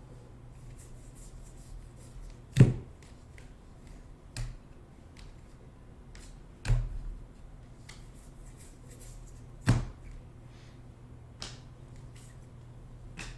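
Trading cards being handled and set down on a table: about six sharp taps and clicks a second or two apart, over a low steady hum.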